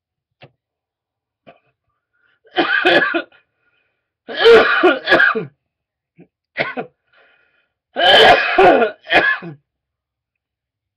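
A man coughing hard and clearing his throat: about six harsh coughs in four bouts, each bout a couple of seconds apart.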